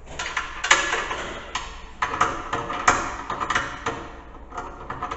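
Hand tools and sockets clattering and clinking irregularly, as through a socket set being searched for a 9/16 socket for a 3/8-inch drive ratchet.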